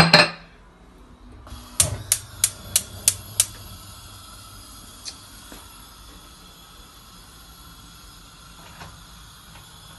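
Gas stove burner being lit: a steady hiss of gas comes in, then six sharp igniter clicks, about three a second, after which the burner keeps burning with a steady hiss.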